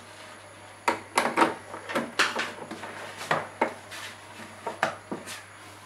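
Clicks and knocks of a laptop power adapter's cord and plug being handled and pushed into a power strip socket, a string of sharp, irregular handling sounds, over a steady low hum.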